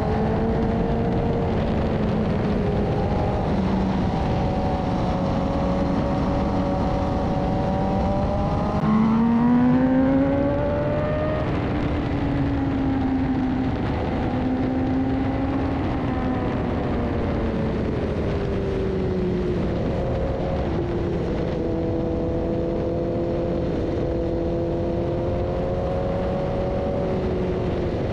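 BMW S1000RR's inline-four engine running at speed. The revs climb sharply about a third of the way in, the loudest moment, then ease off and hold fairly steady, rising and falling gently with the throttle, over a steady rush of wind.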